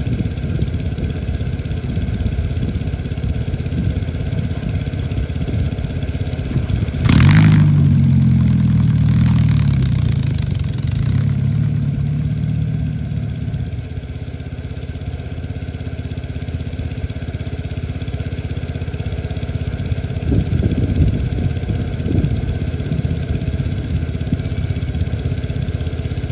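Cub Cadet 104 garden tractor engine running; about seven seconds in it revs up sharply and loudly, then settles back down over the next several seconds to a steady run.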